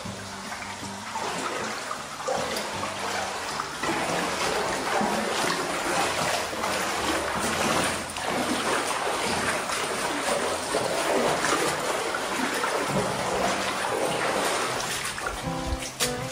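River water splashing and running in a shallow canyon stream, with irregular splashes, under background music.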